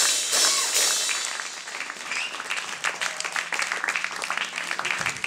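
Audience applause, dense at first and thinning out over the first two seconds into scattered claps.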